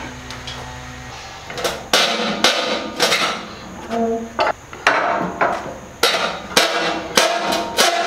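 A cant hook and a large ash log knocking and clanking against the steel bed and stops of a portable band sawmill as the log is levered over, a run of irregular hard knocks and thuds. A low hum stops about a second in.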